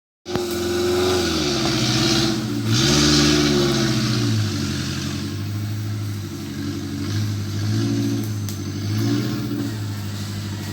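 Off-road 4x4's engine revving, its pitch rising and falling several times, loudest about two to four seconds in, then running on with smaller swells.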